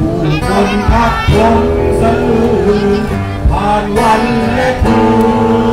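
A man singing into a microphone over backing music, amplified through a PA horn loudspeaker.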